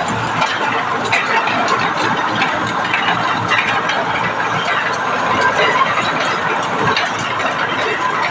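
Grinding machine running steadily, with a dense rattle of small clicks over a continuous mechanical noise.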